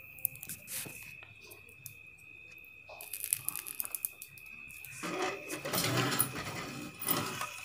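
Hands handling the open welding machine's wiring and parts: scattered light clicks, then about two seconds of rustling and scraping near the end. A steady faint high whine runs underneath.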